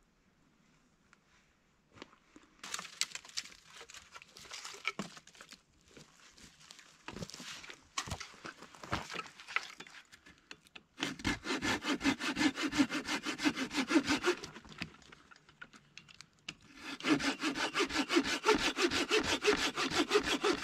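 Hand saw cutting firewood: near silence at first, then scattered scraping, then two long runs of quick, even back-and-forth saw strokes with a short pause between them.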